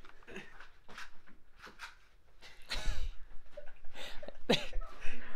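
A person's brief wordless vocal sounds, about three seconds in and again near the end, among scattered knocks and handling noise.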